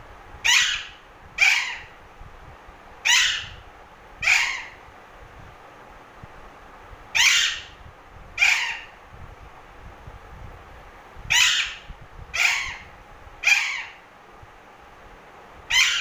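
A pet green parrot giving short, harsh squawks, ten in all, mostly in pairs about a second apart with pauses of a few seconds between.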